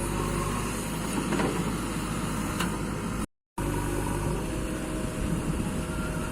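Construction machinery engines running steadily. The sound cuts out completely for a moment about three seconds in, then resumes.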